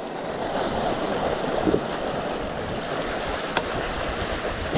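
Flowing creek water rushing and splashing as a fat bike's wide tyres ride through it, with one sharp click about three and a half seconds in.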